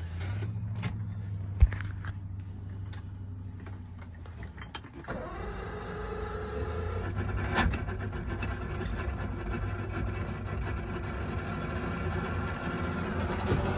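Mercury 175 hp outboard, running a swapped-in 200 hp ECU, starts about five seconds in on choke from cold. Its note rises briefly, then settles into a steady fast idle as it warms up.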